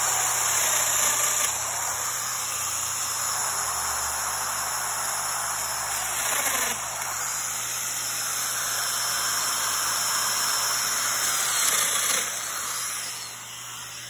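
Festool Domino DF 500 joiner running and plunging mortises into a plywood panel, over the steady hiss of its attached dust extractor. The cutting noise dips briefly a few times between cuts, and the whole sound drops near the end.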